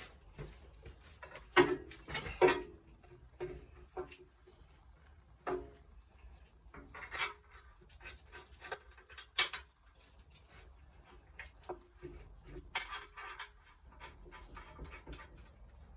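Irregular metal clinks and knocks of a suspension lower arm and its bolts being handled and fitted, with the sharpest knocks in the first few seconds and again about halfway through.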